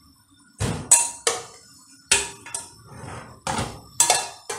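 Kitchen cookware clattering: a string of sharp metal knocks and clinks from pots, lids and utensils, about eight or nine in a few seconds, some with a brief ring.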